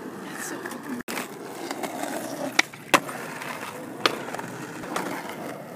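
Skateboard wheels rolling over rough pavement with a steady grinding rumble, broken by sharp clacks of the board against the ground, two close together about two and a half to three seconds in and lighter knocks later.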